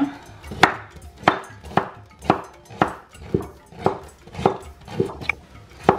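Kitchen knife slicing fresh ginger on a plastic cutting board: a steady series of knife-on-board knocks, about two a second.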